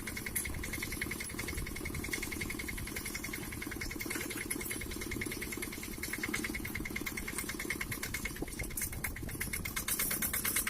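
Tractor engine fitted in a home-built car, running steadily with a fast, even pulse.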